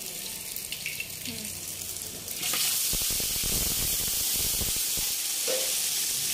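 Oil sizzling in a large cooking pot as ginger-garlic paste fries among whole spices; the sizzle jumps louder about two and a half seconds in, when the paste hits the hot oil, with some low thuds after it.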